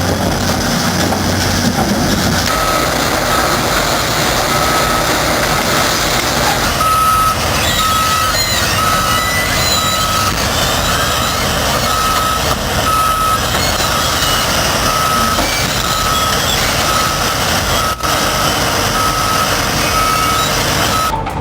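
A heavy machine's reversing alarm beeping at an even pace, a little faster than once a second, over loud engine and machinery noise. The beeping starts a couple of seconds in.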